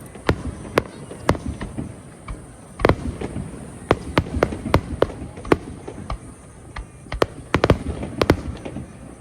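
Aerial fireworks bursting at close range: many sharp bangs in quick, irregular succession. A cluster of bangs near the end is among the loudest.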